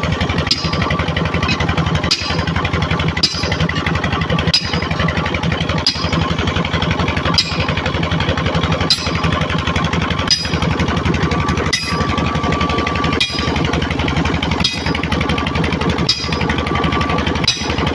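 A machine running steadily with a loud, fast rattle, broken by a brief dip about every one and a half seconds.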